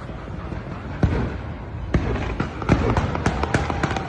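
Fireworks bursting: a run of sharp bangs, a couple spaced about a second apart at first, then coming faster, several within a second, in the second half.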